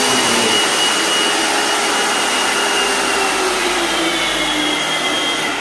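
Lakoni Laguna 70 electric pressure washer running and spraying water from the gun: a steady hiss with a whine over it, sinking slightly in pitch, that dies away near the end as the machine stops. Its stopping shows no leak at the newly fitted quick-release coupling.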